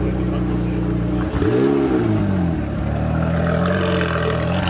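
McLaren 720S twin-turbo V8 running at low speed with a steady engine note. About a second and a half in, it gives one short rev that rises and falls back, then settles into steady low running.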